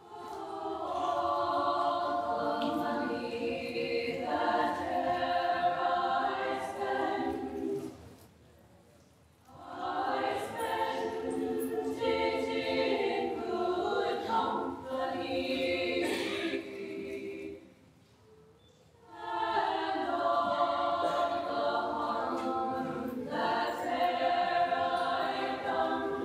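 Small women's choir singing a cappella in three phrases of about seven to eight seconds each, with short pauses between them.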